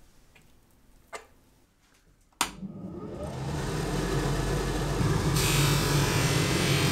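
Benchtop polishing machine (Elma Polini) switched on with a sharp click about two and a half seconds in, its motor and extraction fan spinning up to a steady hum. About two seconds later a small steel watch part is pressed against the spinning buffing wheel, adding a bright hiss.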